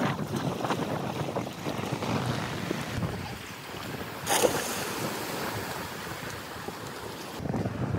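Wind blowing across the microphone, a steady rushing noise, with one brief sharper sound about four seconds in.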